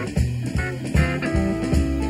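Live recording of a Southern rock band playing a blues-rock song: electric guitar over bass and drums with a steady beat, the guitar holding long notes in the second half.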